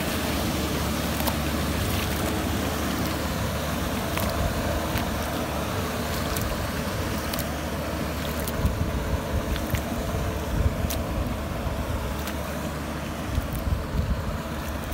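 Tractor engine running steadily, with a few sharp clicks in the second half.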